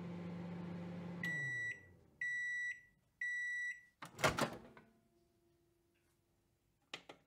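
Microwave oven humming, then winding down as its timer runs out, followed by three high, evenly spaced beeps about a second apart. About four seconds in comes a loud clack, the door being opened, the loudest sound here, and then a faint steady tone and a few light clicks.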